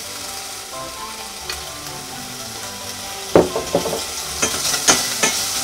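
Bacon lardons sizzling in oil in a stainless steel pan and being stirred with a wooden spatula. A steady low sizzle comes first; about three seconds in there is a loud scrape or knock, followed by several quicker scrapes and clicks.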